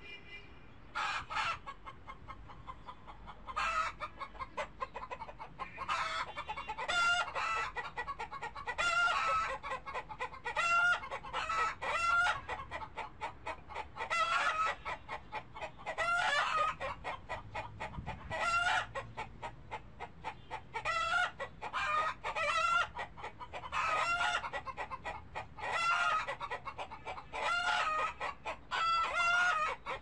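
Chickens clucking and cackling, with bursts of short calls every second or two.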